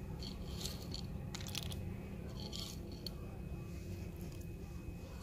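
Peanut pieces being crumbled between fingers and sprinkled into bowls of soup: a few short, faint crackles over a steady low background hum.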